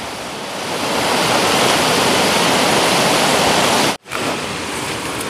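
Rushing water of a mountain stream: a steady, loud rush that swells about half a second in. It cuts out abruptly for an instant about four seconds in and comes back a little quieter.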